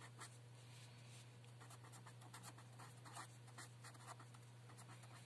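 A pen writing a word by hand on paper: faint, quick, irregular scratching strokes over a steady low hum.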